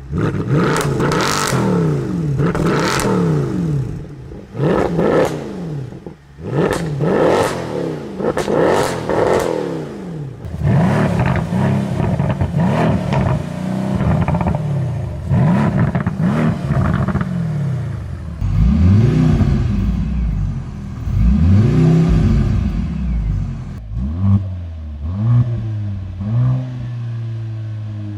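Mercedes-AMG C63 engine being revved repeatedly while stationary: quick blips about once a second at first, then longer, deeper revs, two big ones in the second half, settling to a steady idle near the end.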